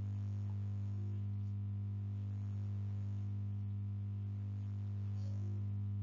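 Steady low electrical hum with a strong low tone and evenly spaced fainter overtones above it, unchanging: mains hum carried in the recording.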